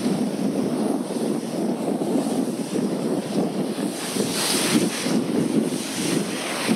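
Wind buffeting the microphone on a moving boat, over the rush of water along the hull: a rough, unsteady noise with a brief louder hiss about four seconds in.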